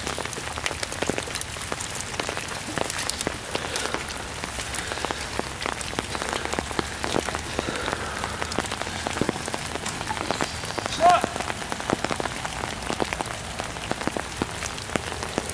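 Steady rain falling on foliage, with many small drop ticks scattered throughout, and a brief shout from a person about eleven seconds in.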